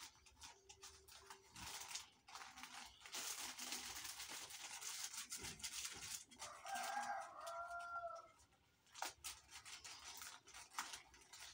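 Plastic sachet strips crinkling and rustling as they are handled, with many small crackles. About two-thirds through, a rooster crows once in the background.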